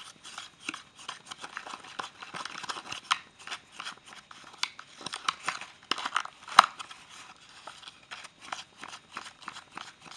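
A plastic spoon stirring Bondo body filler mixed with its hardener in a cut-down plastic cup: irregular scraping and clicking against the cup wall. The sharpest click comes about six and a half seconds in.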